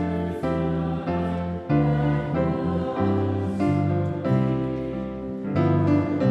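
Slow, gentle music of sustained chords over a steady bass line, the chords changing about once a second.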